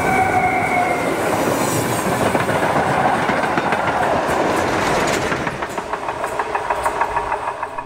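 A train passes close by: a diesel locomotive, then coaches, then the Prussian P8 (class 38) steam locomotive 38 2267 at the rear. The diesel's engine note drops slightly in pitch as it goes by. The wheels then clatter rhythmically over the rail joints, fading as the train moves away near the end.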